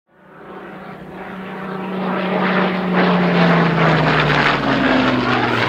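Propeller-driven aircraft engine fading in from silence and growing louder over the first few seconds, then holding steady, its engine note slowly falling in pitch.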